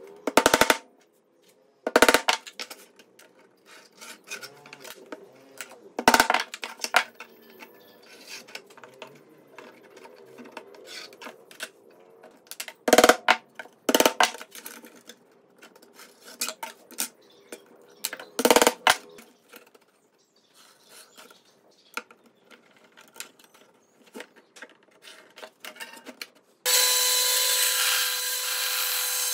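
Hammer driving small nails into wooden boards: a quick run of blows at the start, then single sharp strikes every few seconds, with faint rubbing and handling between. Near the end a bandsaw starts and runs steadily as a pine board is fed into the blade.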